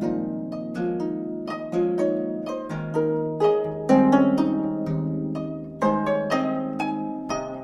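Gayageum ensemble playing: several Korean zithers plucked together in chords and running notes, each note starting sharply and ringing away.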